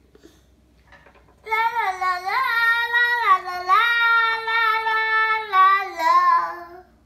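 Young child singing a tune in a high voice, held notes stepping up and down in pitch, starting about a second and a half in and dropping lower near the end.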